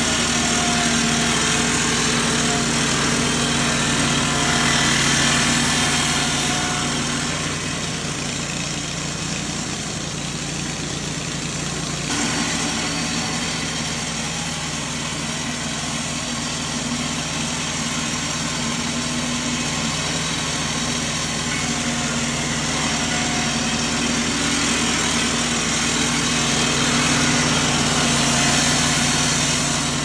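Portable board edger powered by an air-cooled gasoline engine, running steadily while its saws edge pine side boards into 2x4s. A higher hissing whine grows louder over the first several seconds and again over the last several as boards pass through the saws.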